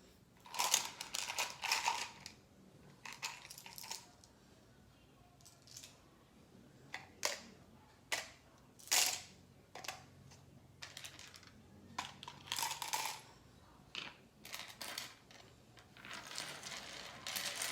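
Small slime charms clicking and rattling as a hand rummages through them, in irregular clusters with short pauses between.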